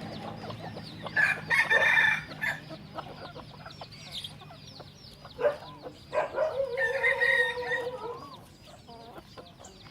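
Rooster crowing twice: a shorter crow about a second in, and a longer, drawn-out crow in the second half that sags in pitch at its end. Softer clucking and a steady patter of small high chirps run underneath.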